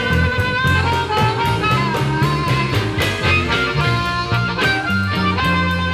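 Blues band playing an instrumental break: a harmonica cupped against a hand-held microphone plays long, bending notes over electric guitar, a steady drum beat and upright bass.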